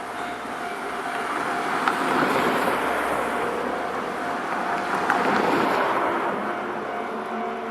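A vehicle passes through the level crossing: a rumble swells over the first couple of seconds, stays loud through the middle with a sharp click or two, then fades. A steady high tone runs underneath.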